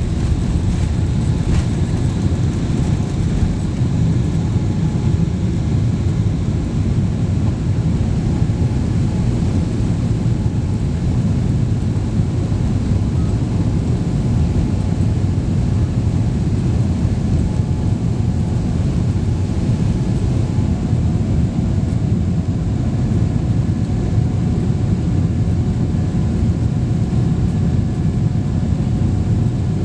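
Jet airliner's engines and airflow at takeoff power, heard from inside the passenger cabin: a steady loud rumble through liftoff and the initial climb.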